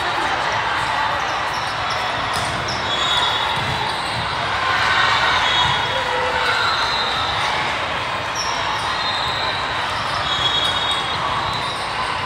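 Steady din of a large hall full of volleyball courts: crowd chatter, volleyballs being hit and bouncing, and short referees' whistle blasts from other courts several times.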